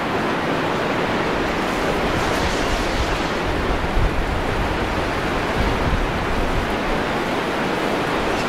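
Steady rushing wash of ocean surf breaking on a sandy beach, with low gusts of wind buffeting the microphone about four seconds in and again a little later.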